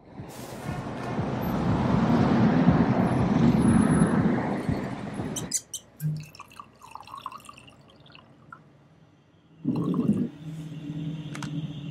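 Red wine poured from a bottle into a glass, set among liquid sound effects: a loud rushing noise builds and cuts off suddenly about five seconds in, small clicks follow, and a low steady tone starts near the end.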